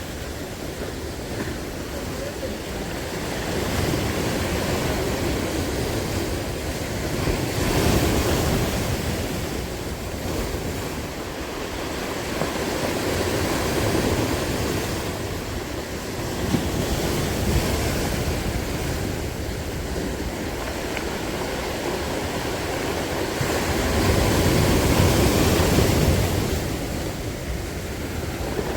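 Sea surf washing onto the shore, swelling louder a few times as waves come in, with wind buffeting the microphone.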